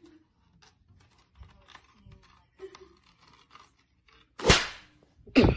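Faint rustling and scratching as a cat paws at a face mask tangled around its head. Near the end come two loud, short, rasping bursts of noise about a second apart.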